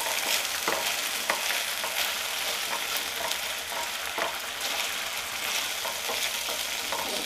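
A thick ginger-garlic and chili sauce sizzling steadily in a nonstick frying pan, while a wooden spatula stirs and scrapes it around the pan in short strokes.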